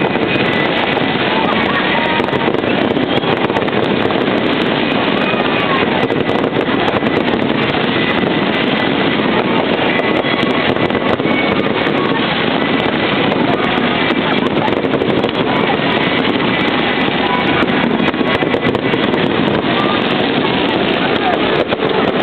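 New Year's Eve fireworks popping and crackling over the steady, loud noise of a large crowd, with many short cracks scattered through and no single standout bang.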